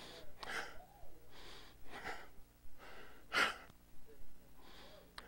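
A man breathing hard into a microphone: quick, audible breaths, about seven in a few seconds.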